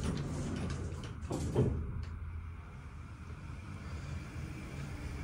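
Thyssenkrupp hydraulic elevator car closed up at the top floor and setting off downward: a brief clunk about a second and a half in, over a steady low hum of the car.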